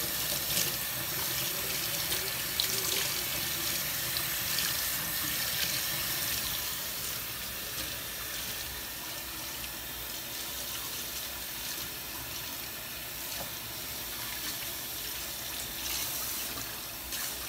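Kitchen faucet running steadily into a stainless steel sink, the water splashing over a boy's head as conditioner is rinsed out of his hair by hand.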